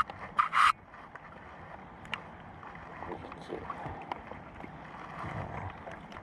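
Sounds aboard a small fishing boat in the rain: two short, loud noisy bursts about half a second in, then a steady hiss with scattered light ticks.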